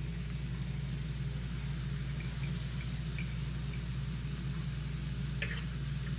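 Churro dough rings frying in a pan of hot oil: a soft sizzle with scattered small crackles over a steady low hum. A fork clicks once against the pan about five and a half seconds in, as the rings are turned.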